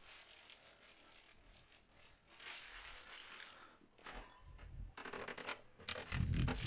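Plastic bag crinkling as it is folded and handled around a block of cheese, then footsteps and a few low thumps.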